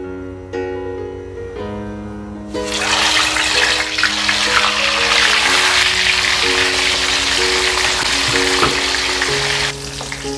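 Blocks of white tofu seasoned with garlic and salt water frying in hot oil in a wok: the oil starts sizzling hard about two and a half seconds in and keeps it up, easing off near the end. Background guitar music plays throughout.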